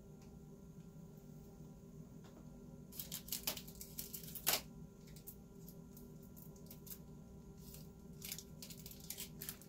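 Faint crinkling and clicking as makeup brushes are handled and taken out of their packaging, in two short spells: about three seconds in and again near the end. A faint steady hum runs underneath.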